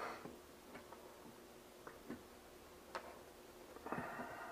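Light clicks and taps of test leads and bench equipment being handled on a workbench, a few scattered clicks spread over the seconds, then a brief rustle of handling about four seconds in.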